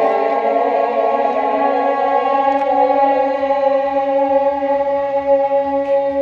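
Background music of sustained, held notes like a choir or drone, sliding slowly in pitch during the first few seconds and then holding steady.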